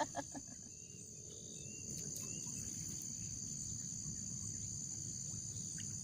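A steady, high-pitched chorus of insects, crickets or cicadas, with a low rumble underneath and a few sharp clicks right at the start.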